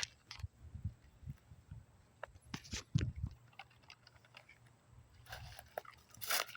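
Scattered footsteps and small clicks of someone walking on the ground, with a few soft thumps about three seconds in and a longer rustle near the end.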